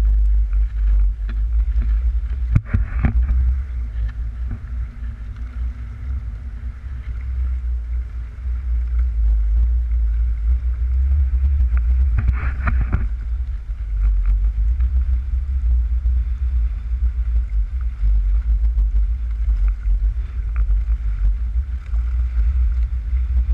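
Wind of about 15 mph buffeting an action camera's microphone on a small skiff trolling across choppy water, a heavy, uneven rumble, with two brief louder rushes about three and twelve seconds in.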